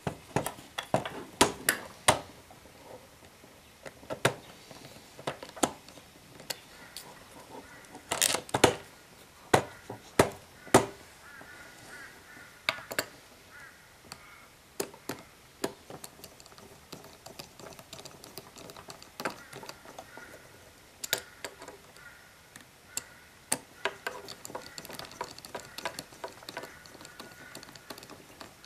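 A plastic car instrument cluster and a screwdriver handled on a wooden table: scattered sharp clicks and knocks, loudest in the first ten seconds or so, then lighter ticking clicks as the screwdriver works a screw in the plastic housing.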